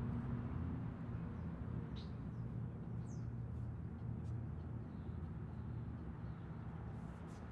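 Steady low outdoor rumble, with a few faint high bird chirps about two and three seconds in.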